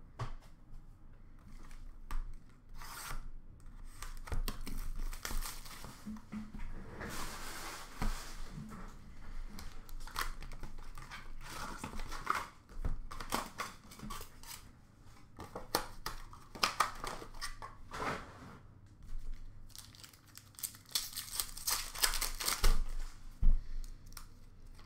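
Trading card box and packs being torn open by hand: several bursts of tearing and crinkling wrapper, with clicks and taps of cards and cardboard being handled.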